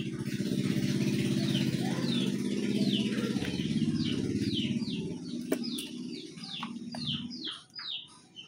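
A motor vehicle's engine passing by, swelling in over the first second and fading out from about five seconds in, with a bird singing a fast series of short falling chirps over it.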